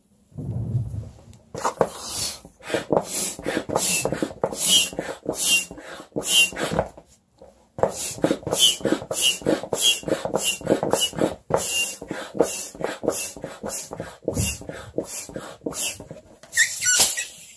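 Foot-operated bellows air pump being stepped on over and over, each stroke pushing a puff of air through its hose into a latex balloon with a short squeak, about one and a half strokes a second, pausing briefly about seven seconds in. A brief squeak near the end.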